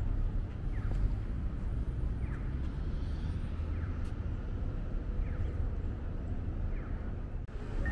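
City street ambience: a steady low rumble of traffic, with a short high chirp repeating about every second and a half.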